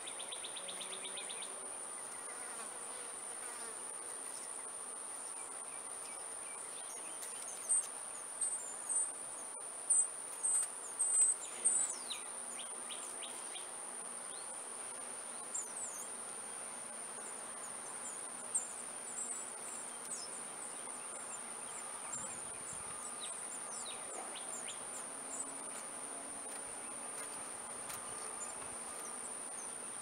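Steady, high-pitched insect trill, with a quick run of sharp, high chirps from the northern cardinals at the nest between about 8 and 12 seconds in, and a couple more later.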